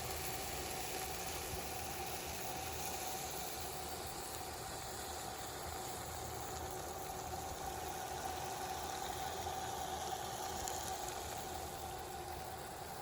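A pan of stir-fried mung bean sprouts with broccoli and mushroom simmering on the stove: a steady hiss with a steady hum under it.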